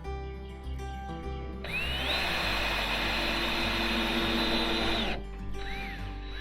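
Power drill running for about three seconds, its whine rising as it spins up and then holding steady before it stops, with a short second burst near the end, over background music.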